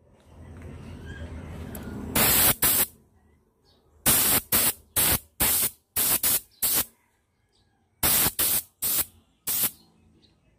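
Paint being sprayed in about a dozen short hissing bursts, in three groups, separated by near silence. This is paint going onto the motorcycle hubs.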